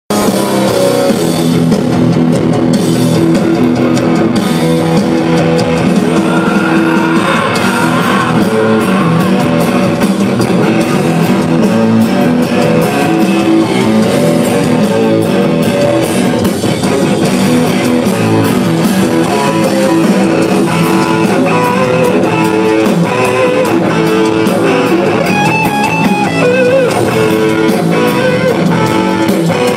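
Live rock band playing loud, with electric guitar, bass and drums, heard from among the crowd.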